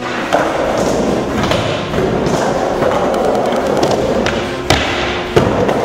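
Skateboard wheels rolling hard across a concrete floor and up a wooden quarter-pipe ramp, a steady rolling noise. Two sharp clacks of the board come near the end.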